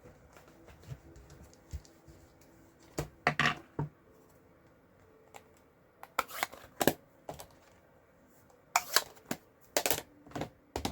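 Clusters of light clicks and taps as craft supplies are picked up and set down on a desk.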